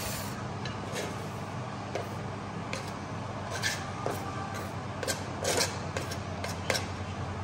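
Kitchen knife scraping chopped herbs off a plastic cutting board into a bowl: a string of short scrapes and taps, thickest in the second half, over a steady low hum.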